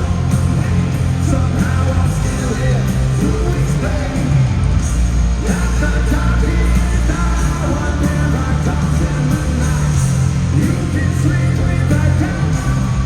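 Live hard rock band playing loud through an arena PA: distorted guitars, bass and drums, with shouted, yelled singing over the top.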